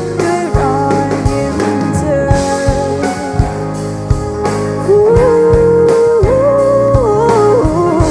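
Music: a song with a sung melody over guitar and a drum beat, the melody coming through strongest about five seconds in.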